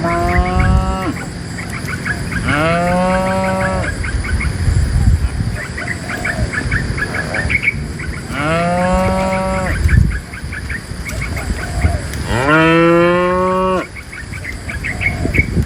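Cows mooing: four long, drawn-out moos a few seconds apart, with faint short high chirps between them.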